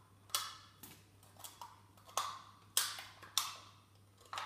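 Scissors snipping through the thin metal of a cut-down aluminium drink can, about six sharp cuts at uneven intervals, to free the hardened candle wax packed inside.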